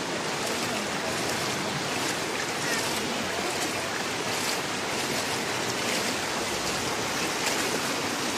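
Floodwater rushing across a road, a steady, even rush of water noise.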